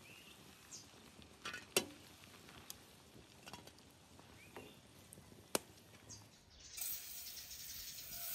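Wooden tongs stirring green beans in a pan of boiling water, clicking sharply against the pan a few times. Near the end, butter starts sizzling in a hot frying pan with a steady hiss.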